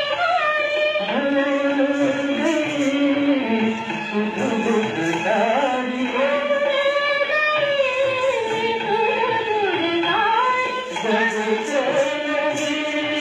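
A vintage Hindi film song playing: a voice singing long, sliding, ornamented lines over instrumental accompaniment.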